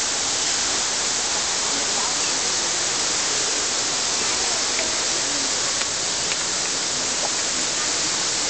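A steady, even rushing hiss, like running water, with faint voices now and then.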